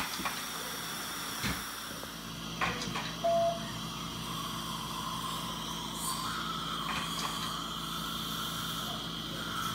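Steady hiss and hum of dental equipment as an intraoral scanner scans the teeth, with a few soft knocks and one short electronic beep about three seconds in.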